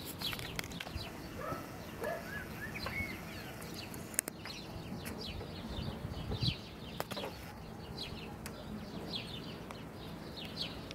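Small birds chirping and twittering all through, with short quick calls, a few of them rising and falling. A few sharp clicks stand out, about four seconds in and again about seven seconds in.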